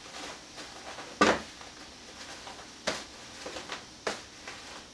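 A few short, sharp knocks of kitchen things being handled at a counter, with faint rustling between them; the first, about a second in, is the loudest.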